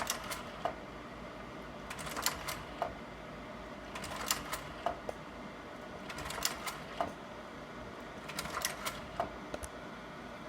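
Sawyer 550R slide projector changing slides from a flat tray: its slide-change mechanism clacks in short bursts of several clicks about every two seconds, five changes in all, over the projector's steady fan noise.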